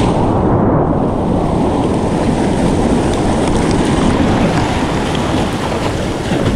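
Whitewater rushing and splashing around a kayak's hull as it rides the shore break in to the beach, with wind rumbling on the microphone; the hiss of spray fills in about a second in.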